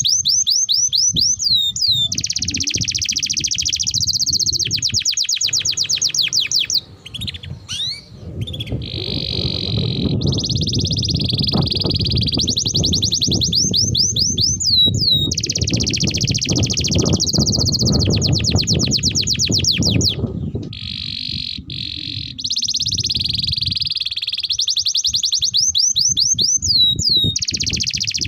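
Domestic canary singing long rolling trills of fast repeated notes, one phrase after another with brief pauses, over a low background noise.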